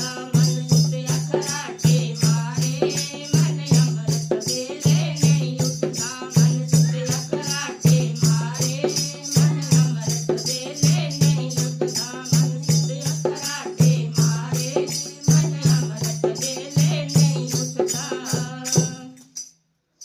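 Bhajan kirtan music with a fast, steady beat, jingling hand percussion and a melody line, stopping abruptly near the end.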